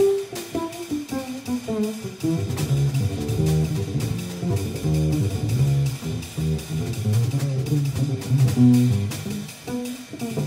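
Live jazz trio of piano, pizzicato double bass and drums playing, the plucked double bass prominent, with a quick falling run of notes in the first two seconds and light cymbal strokes behind.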